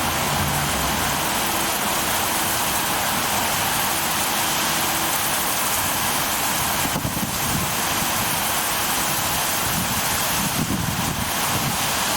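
Thunderstorm downpour: heavy rain falling in a loud, steady hiss, with gusty wind buffeting low underneath, strongest in the second half.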